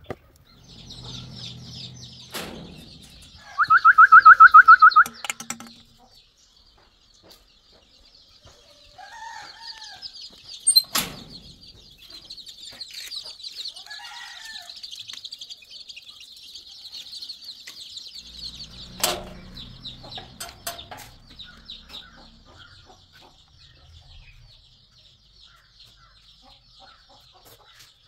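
Domestic chickens calling: one loud drawn-out call a little under four seconds in, then a few short calls, over a steady high chirring. Two sharp knocks come in between, one about eleven seconds in and one about nineteen.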